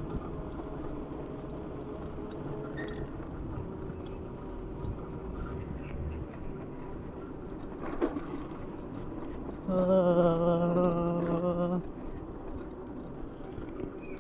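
Mobility scooter's electric drive running with a faint steady whine as it rolls along the road. Near the end a person's voice gives one drawn-out hum or yawn lasting about two seconds, the loudest sound.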